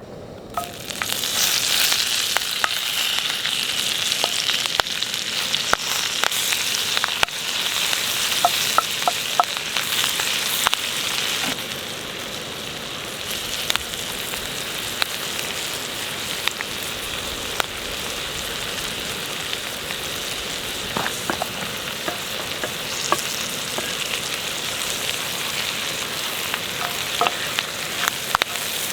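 Broccolini and chanterelle mushrooms sizzling in a hot skillet on a propane burner. The sizzle starts loudly within the first second and settles to a steadier, slightly quieter sizzle about halfway through, with scattered light clicks as the vegetables are stirred.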